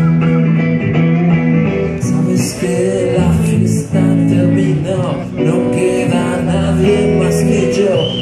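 Amplified guitar played live in a slow blues-rock song, carrying an instrumental passage between sung lines.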